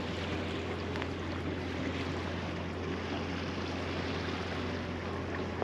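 Sailing yacht under way under engine in calm water: a steady low hum with water washing along the hull.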